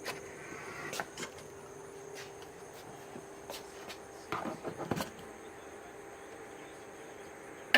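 Handling of a Tesla Wall Connector charging cable: a few light knocks and clicks, a short stretch of rustling and knocking about four to five seconds in, and a sharp click near the end. A steady low hum runs underneath.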